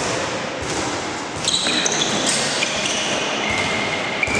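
Basketball sneakers squeaking on the gym court as players cut and drive, several short high squeaks from about a third of the way in and a longer one near the end. A few basketball bounces and the hum of voices in the hall sound underneath.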